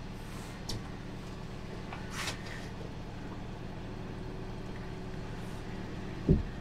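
Boat engine idling with a steady low hum, with a few faint clicks and one sharp knock near the end.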